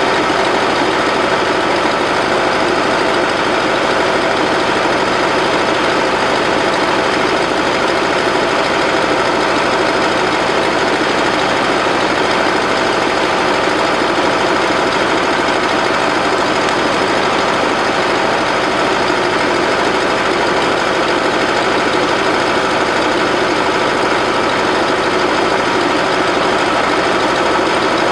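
Bobcat 610 skid-steer loader's Wisconsin gasoline engine running steadily and loudly, with no change in speed.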